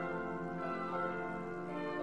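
Instrumental classical music with sustained notes.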